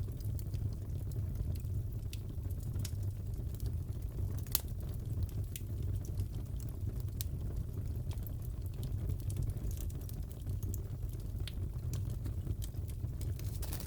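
Crackling fireplace fire: a steady low rumble of flames with scattered sharp pops and crackles, one louder pop about four and a half seconds in.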